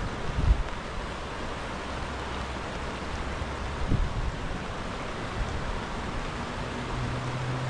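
Steady rush of water over the Koiteli rapids in the rain, with a couple of low wind thumps on the microphone. Near the end a low, steady hum begins.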